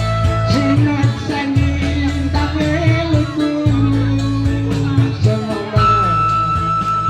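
Band music with a steady low beat and a long held melodic line, the accompaniment to a song at a live sing-along.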